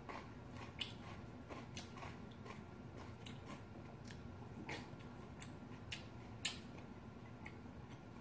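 Eating sounds: a person chewing rice in green tea, with scattered short clicks and smacks of the mouth and of a wooden spoon and chopsticks against a ceramic bowl, about one or two a second and irregular.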